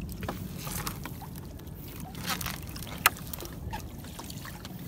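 Sea water sloshing against a small boat's hull, with scattered light clicks and rustling as a fishing net is handled over the side, and one sharp click about three seconds in.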